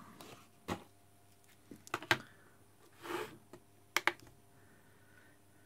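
A small digital pocket scale being handled on a desk. There are a few separate clicks and knocks as it is set down, then two quick sharp clicks just after four seconds in as its buttons are pressed.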